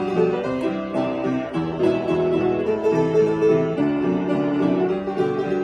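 Upright piano played: a lively, continuous passage of quick melody notes over chords.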